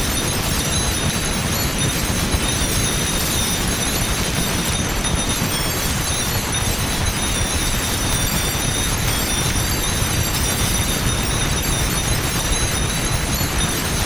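Several M61 Vulcan rotary cannons firing together in one continuous, unbroken stream of rapid fire, with spent shell casings clattering onto concrete and metal and high metallic ringing.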